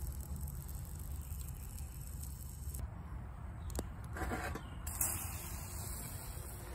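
A metal pot gripped with a cloth towel on a campfire grate: a short rustling scrape about four seconds in, over a steady low rumble.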